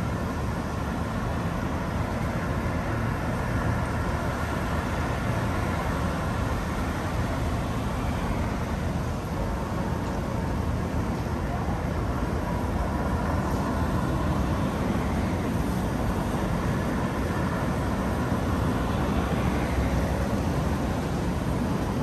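City street traffic: a steady low rumble of passing cars and other vehicles, with no single event standing out.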